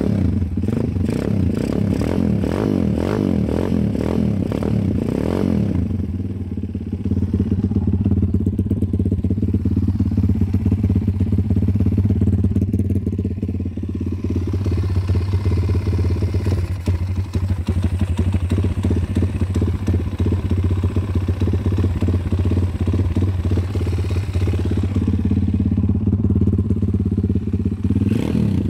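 A brand-new WPB Beast 190 pit bike's 190cc single-cylinder four-stroke engine running just after its first start from cold. The revs rise and fall unevenly for the first five seconds or so, then it settles into a steady idle.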